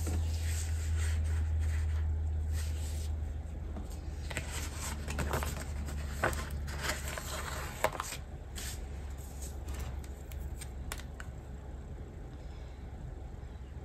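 Paper sticker sheets rustling and crinkling as they are handled, with a few sharp ticks. Near the end a paper sticker strip is laid across the page. A low hum underneath fades out in the first few seconds.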